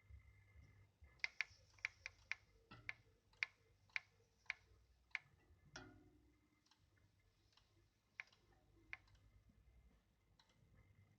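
Tacx Genius Smart bike trainer making sharp clicks, about two a second for several seconds, then two more spaced clicks later, over a faint hum. The clicking is the unwanted noise the trainer is being recorded for.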